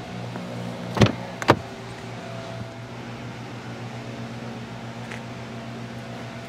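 Front passenger door of a Mercedes-Benz S63 AMG being opened: two sharp clicks about half a second apart as the handle is pulled and the latch releases, over a steady low hum.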